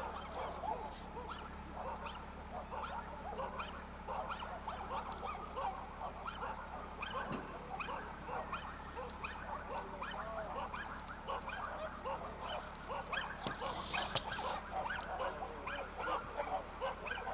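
Several dogs barking, their many short calls overlapping without a break. A brief sharp noise stands out about 14 seconds in.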